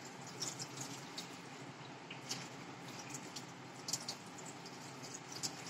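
Faint steady run of a tap into a bathroom washbasin, with small scattered splashes as a child cups the water in his hands to rinse his mouth.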